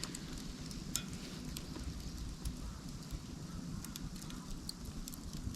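Fire of split dry bamboo burning down, crackling with scattered sharp pops over a low steady rumble.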